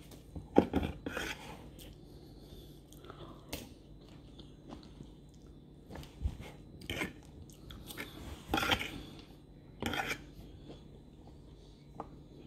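A person chewing soft, wet food with the mouth close to the microphone: irregular lip smacks and clicks, a few of them much louder and spaced a couple of seconds apart.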